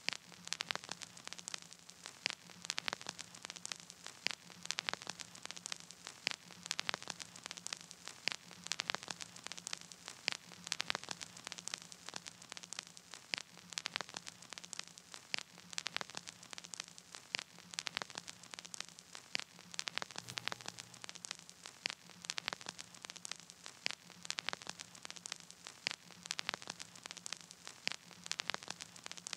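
Crackling static: dense, irregular clicks over a hiss, with a faint steady low hum underneath and no music.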